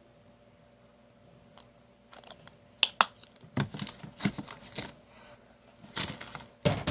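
A plastic lotion bottle being handled and squeezed into the slime bowl: irregular short clicks and crackles that grow busier about halfway through.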